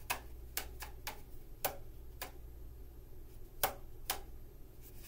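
Cardboard paper towel tube boomwhackers being tapped to test their pitch: about eight short hollow knocks at an uneven pace, a few with a brief ring, then a pause for the last second.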